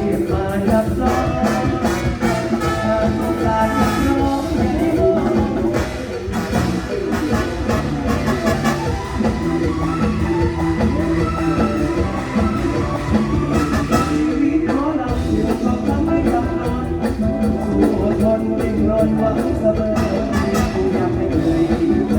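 Mor lam band music played loud through a stage PA system, with a singing voice over instruments and a steady drum beat.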